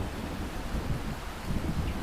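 Steady rain with a low rolling rumble of thunder that eases about a second in and swells again near the end.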